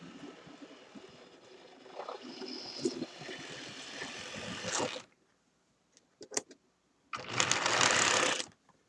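Model train locomotive running on track, its small electric motor and wheels growing louder, then cutting off abruptly about halfway through. A few sharp clicks follow, then a loud burst of hissing noise lasting just over a second near the end.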